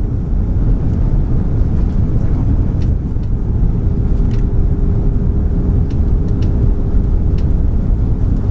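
Airbus A340 cabin noise on final approach with landing gear and flaps down: a steady, deep rushing roar of airflow and engines. A faint steady hum joins it about four seconds in.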